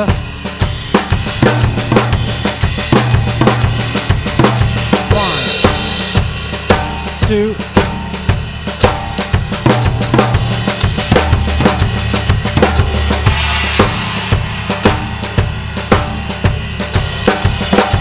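Drum kit played in time: a groove broken by Swiss Army triplet fills, flam-led triplets on snare and toms grouped in threes so that the fill runs over the bar line, with bass drum, hi-hat and cymbals. Cymbal wash swells about five seconds in and again near thirteen.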